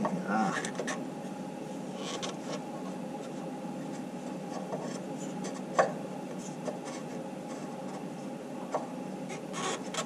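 Hands working a diesel fuel water-separator filter on its mount: soft rubbing and scraping of the filter against the fitting, with two short sharp clicks about six and nine seconds in, over a steady low hum.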